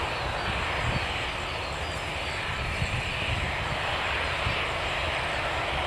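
ATR 72 twin-turboprop airliner on approach, its engines and propellers giving a steady, distant drone that slowly swells and eases.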